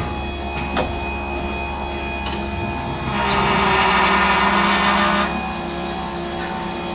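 A steady mechanical hum with a few constant tones, and a few faint clicks. From about three seconds in, a louder rushing noise lasts for about two seconds and then stops.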